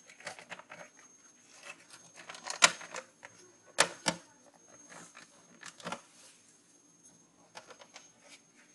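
Handling noise from an ASUS IDE CD-ROM drive's metal case being turned over by hand on a repair mat: scattered clicks and taps, with a sharp knock about two and a half seconds in and two more close together about a second later.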